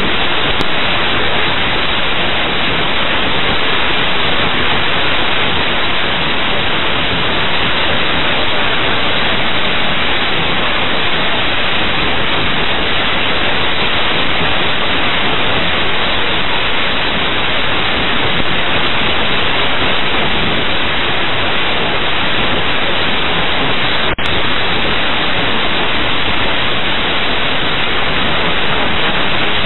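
Steady, loud static hiss from a radio receiver on an air traffic control frequency, with no one transmitting and a momentary dropout late on.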